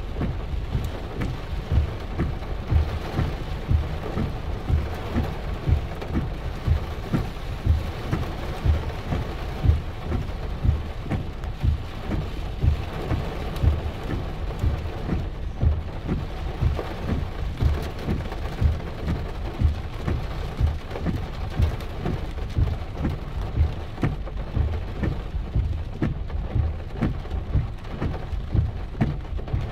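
Heavy rain pouring down, with a dense, irregular patter of drops striking close by.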